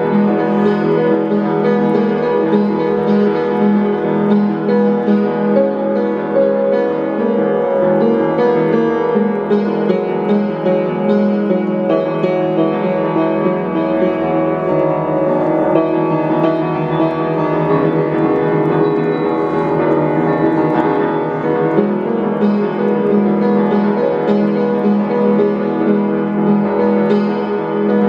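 Piano playing a continuous piece of music.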